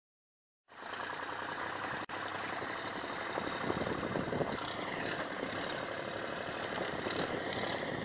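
A small fishing boat's engine running steadily, heard over wind and water noise on the phone's microphone; it starts abruptly less than a second in.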